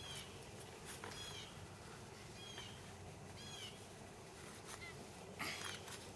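A bird chirping faintly, four short high chirps in the first three and a half seconds, with a brief scratchy noise about five and a half seconds in.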